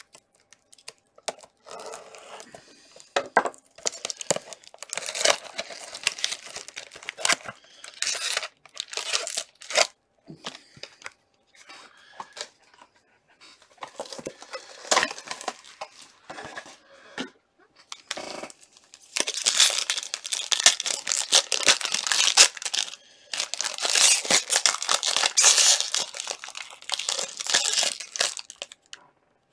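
Hands tearing open the wrapping of a sealed trading card box and its foil card packs: irregular rips and rustles, turning into long stretches of continuous crinkling in the last third.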